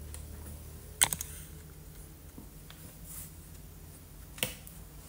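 A few sharp taps and clicks of hands handling paper and art supplies on a tabletop: a loud tap about a second in, another a little before the end, and faint ticks between, over a low steady hum.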